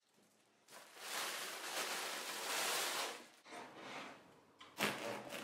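Handling of a crusty ring-shaped bread loaf on a wooden cutting board: a dry rustling for about two and a half seconds, then a sharp knock near the end as the loaf meets the board.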